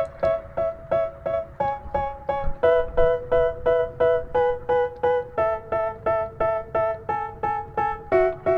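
Background music: a piano-like keyboard playing short repeated chords, about three a second, changing chord every few seconds.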